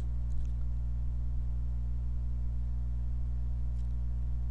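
Steady low electrical hum with no other sound: a pause in the narration.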